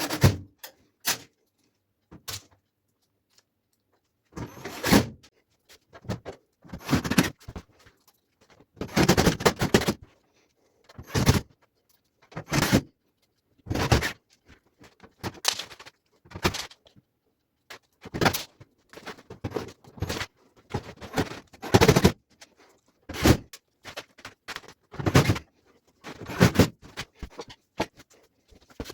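Irregular clunks and scrapes, each under a second and spaced a second or two apart, of tumble dryer panels and parts being handled.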